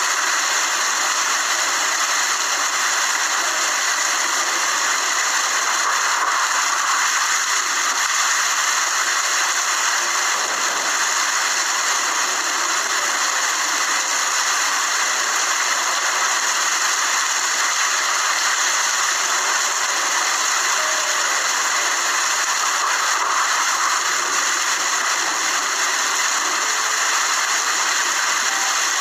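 Steady rain falling, a constant even hiss with no breaks.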